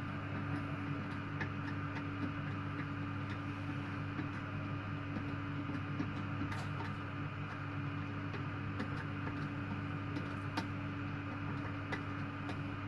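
A steady low hum under a few faint, scattered clicks and taps, as plastic toilet-seat hinge nuts are worked by hand beneath the porcelain pan.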